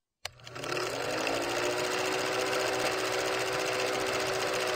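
Film projector sound effect: a rapid, steady mechanical clatter with a motor hum, starting with a click and the hum rising briefly as it comes up to speed.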